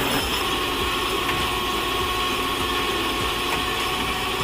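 Tow truck's engine running steadily, with a thin steady whine above it.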